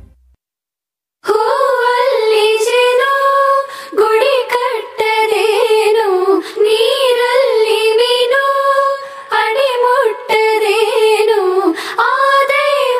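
A high solo female voice singing a wordless, gliding melody, the opening of a devotional song to the goddess Sharada, starting about a second in after a moment of silence.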